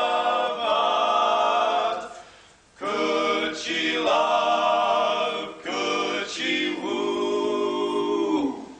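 Barbershop quartet of four men singing a cappella in close harmony, holding sustained chords. There is a short break about two seconds in, and a final held chord stops just before the end.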